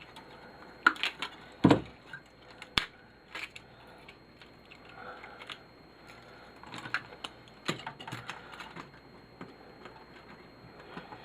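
Scattered clicks and knocks of plastic and metal TV parts and wiring being handled and pulled apart by hand, a few sharper knocks in the first three seconds and another cluster partway through.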